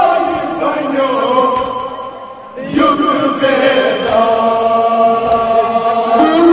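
Men's voices chanting a Kashmiri noha, a Shia lament, in long drawn-out notes. There are two phrases, with a short break about two and a half seconds in.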